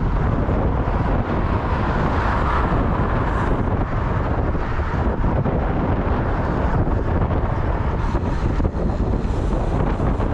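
Steady wind buffeting the camera microphone while riding, over a continuous rumble of vehicle and road noise.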